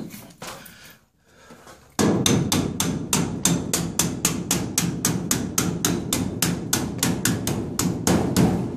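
Rapid hammer blows on sheet-metal ductwork, about four or five a second, starting about two seconds in: a snug-fitting sheet-metal reducer being driven into the duct.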